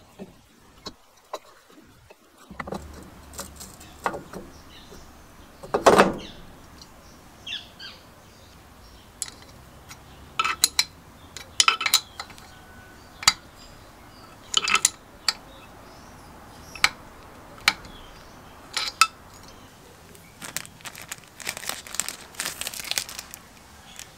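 Metal clinks and taps of engine parts and hand tools as the cylinder of a Robin EC10 two-stroke is fitted over its piston onto the aluminium crankcase and its nuts are tightened, with a heavier knock about six seconds in. A plastic bag crinkles near the end.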